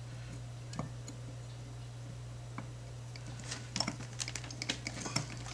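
Small irregular metallic clicks and ticks of a lens spanner wrench's tips catching and slipping in the notches of a Nikon 50mm f/1.4 AI-S lens's front ring as it is turned, coming thicker from about three seconds in, over a faint steady low hum.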